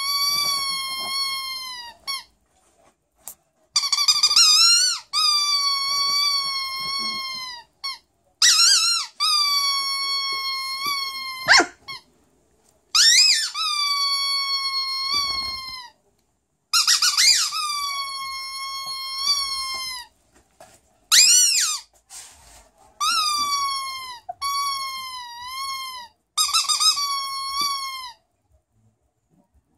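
A dog whining in a series of long, high, drawn-out whines, each lasting one to four seconds with a wavering pitch that falls at the end, separated by short pauses. One short whine about two-thirds of the way through rises sharply.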